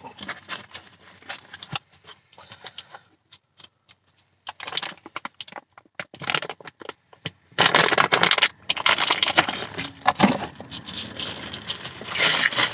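Packaging crinkling and rustling with small clicks as a shift knob is unwrapped by hand, sparse at first and then continuous and louder from about halfway through.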